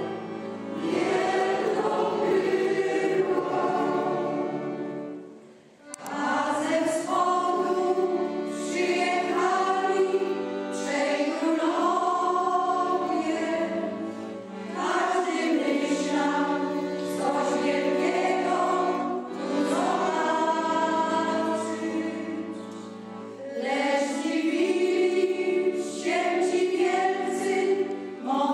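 A choir singing in harmony, phrases of held chords with a short break about five seconds in.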